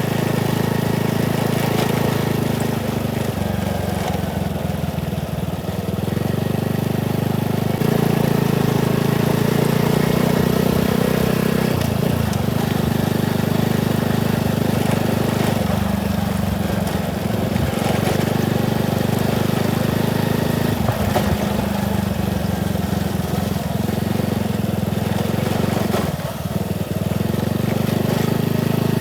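Small motorcycle engine running while riding, its pitch and level changing every few seconds as the throttle opens and closes, with a short dip about 26 seconds in.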